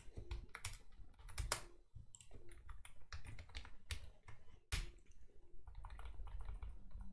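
Computer keyboard typing: an irregular run of key clicks as text is deleted and typed.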